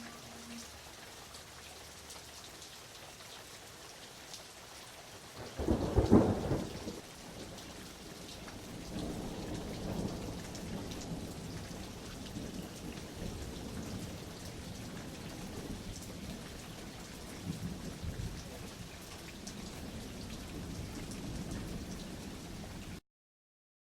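Steady heavy rain with a sudden loud thunderclap about five and a half seconds in, followed by long rolling thunder rumbling low under the rain. The sound cuts off abruptly near the end.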